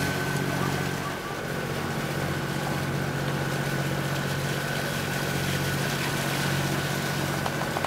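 Sailboat's inboard diesel engine running steadily while motoring, with water rushing along the hull and a thin steady high whine over the engine.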